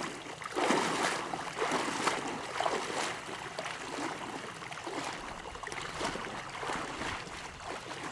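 Legs wading through thigh-deep water, a swish and splash with each stride about once a second, growing fainter as the wader moves away.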